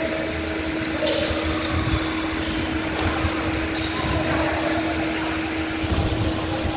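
Indoor basketball court during play: sneakers squeaking on the hardwood floor from about a second in, over a steady mechanical hum.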